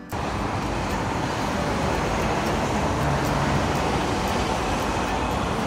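Steady road traffic noise, an even rush with no single vehicle standing out.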